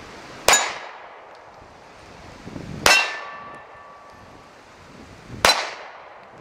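Three shots from a Beretta Nano 9mm pistol, a couple of seconds apart. Each is followed by the clang of a steel plate target being hit, and the second leaves the plate ringing for a second or so.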